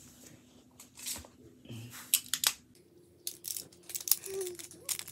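Plastic magnetic building tiles clicking and clattering as they are picked up and snapped together, a string of sharp clicks that gets busier about two seconds in.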